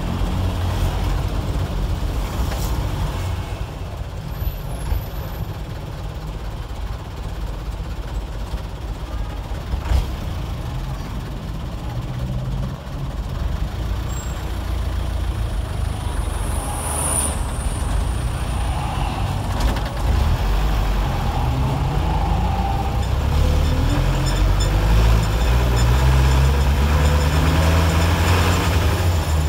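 Old 1990s Mitsubishi diesel engine of a medium bus, heard from inside the cab, pulling away and then revving up hard through the gears, its pitch climbing over the last several seconds. A short hiss of air comes about halfway through.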